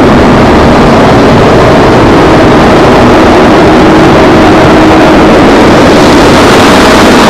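Loud, steady engine noise from heavy machinery doing concrete work, running without a break, with a faint steady hum under it.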